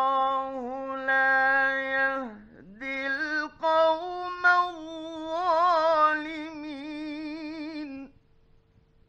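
A male Quran reciter chanting a long melodic phrase in a late-1950s radio studio recording, holding notes and bending them in ornamented wavers, with a short break about two seconds in. The voice stops about eight seconds in, leaving only a faint steady hum of the old recording.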